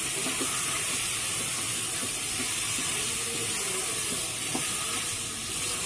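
Mutton pieces frying in oil in an open pressure cooker as they are stirred and browned, a steady sizzling hiss.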